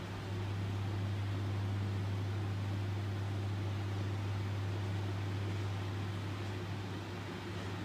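A low, steady hum over a constant hiss, coming up just after the start and easing off a little near the end.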